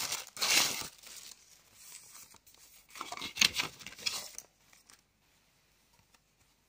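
Thin clear plastic packaging bags crinkling as they are handled, loudest in the first second and again in a burst around three to four seconds in, then dying away to near silence.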